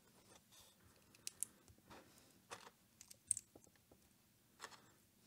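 Small plastic LEGO bricks clicking as they are handled and pressed together by hand: scattered faint clicks and snaps, the sharpest about three seconds in.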